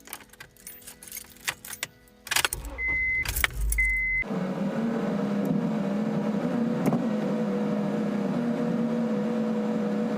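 Keys jangling and clicking, then two short beeps over a brief low rumble, after which a car engine starts and runs steadily.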